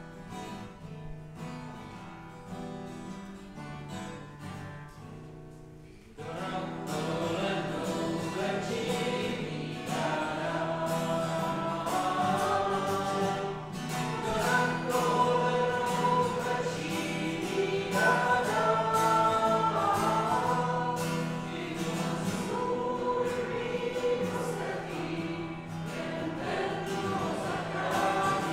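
An instrumental introduction to a hymn. About six seconds in, a congregation comes in singing the hymn to the accompaniment.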